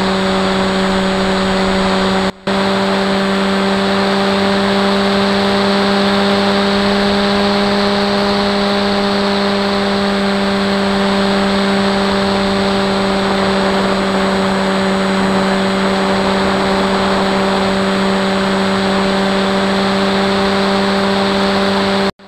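Electric motor and propeller of a Sweepwings Flinch FPV flying wing humming at a nearly steady pitch in flight, with air rushing past. The sound drops out for an instant about two seconds in and cuts off at the end.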